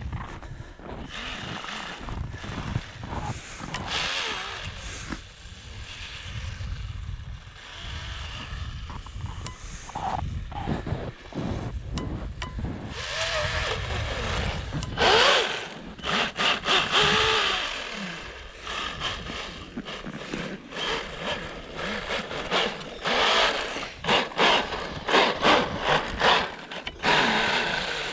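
Small electric motor buzzing at high revs, with wind rushing over the microphone and loud irregular bursts of noise in the second half.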